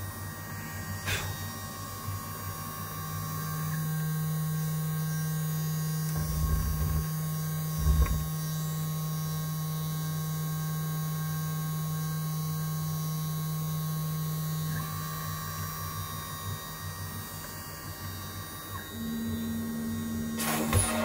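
Stepper motors of a small CNC machine whining at a steady pitch while the axes move, with the pitch changing several times and a couple of low thumps. Near the end a high-speed spindle starts to run.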